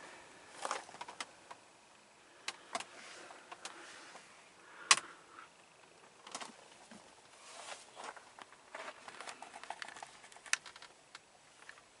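Scattered light clicks, taps and rustles of handling inside a car's cabin, with one sharper click about five seconds in.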